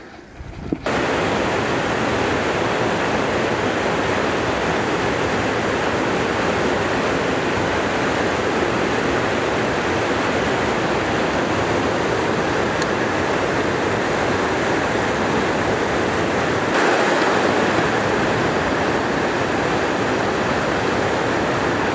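Shallow river rushing over a riffle: a steady, loud rush of flowing water, starting about a second in and growing slightly louder near the end.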